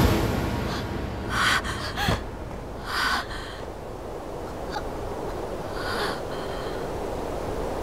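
A young woman breathing hard and out of breath from running, with four short, sharp gasping breaths spaced about a second or more apart, over a steady rush of wind.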